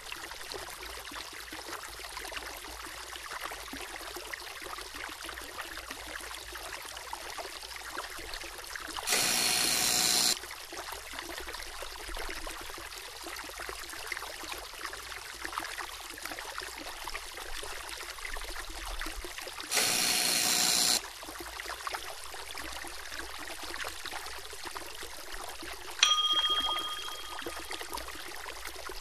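Soft steady trickle of running river water, broken twice by a loud, harsh buzzer-like blast about a second long, marking a wrong choice in the puzzle. Near the end a single bell-like ding rings and fades.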